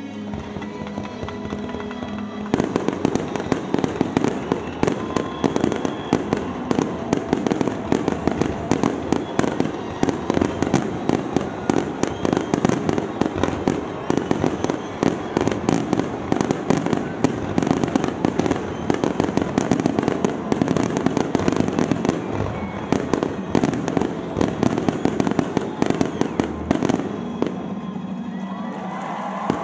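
Fireworks finale barrage: a dense, rapid run of explosions and crackles starting about two and a half seconds in and stopping a couple of seconds before the end, with music playing underneath.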